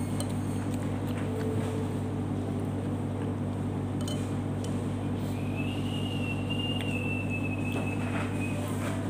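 A steady low machine hum, with a few faint clinks of a spoon against a ceramic bowl. A thin, high, whistle-like tone sounds for about three seconds in the second half.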